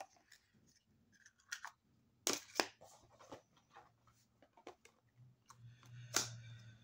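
Handling and opening of a foil-wrapped chocolate surprise egg and its plastic toy capsule: scattered small clicks and crinkles, with a few sharper plastic snaps, two about two and a half seconds in and one near the end.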